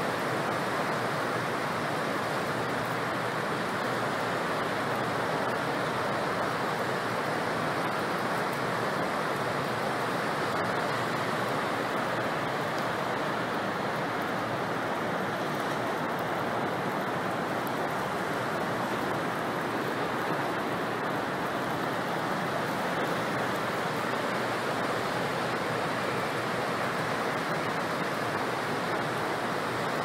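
Steady rushing of floodwater pouring through the open spillway gates of a concrete river dam and churning in the river below. The dam is releasing high flood flow after days of heavy rain.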